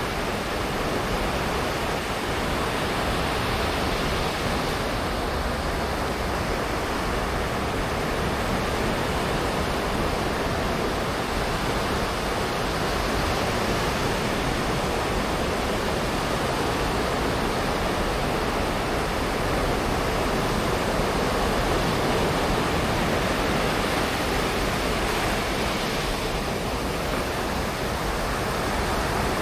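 Ocean surf washing onto the beach: a steady, dense rush of breaking waves that swells slightly now and then.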